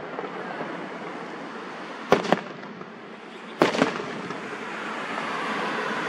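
Aerial fireworks bursting: two pairs of sharp bangs, the first about two seconds in and the second a second and a half later.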